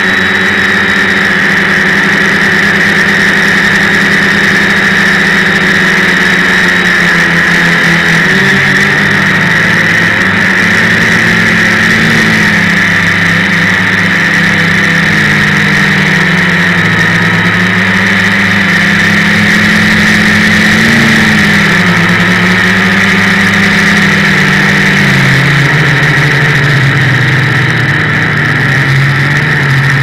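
Electric multirotor drone's motors and propellers running, heard from its onboard camera: a loud steady high whine, with lower tones that rise and fall again and again as the throttle changes.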